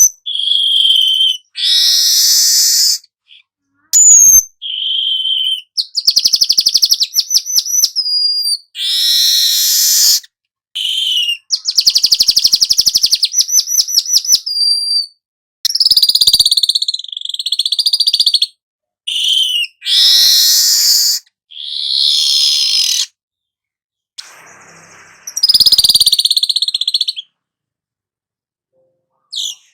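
Weaver bird (manyar kepala emas) singing in bursts of high, harsh chattering, buzzy wheezes and fast rattling trills, each phrase broken off by a short silence.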